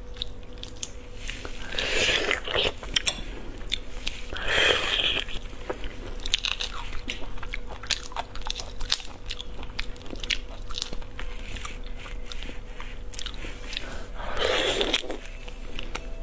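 Close-up eating sounds: whole shrimp being peeled by hand, the shells cracking and snapping in many sharp little clicks, with a few louder crunching bites near the start and end.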